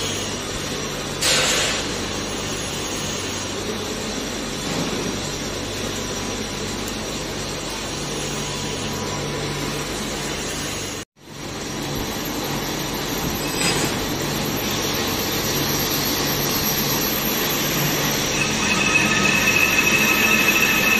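Lathe running, with a boring bar cutting the bore of a gearbox housing turning on the faceplate: a steady mechanical grinding over the hum of the lathe gearing. It breaks off briefly about halfway, and near the end a high squeal from the cut comes in.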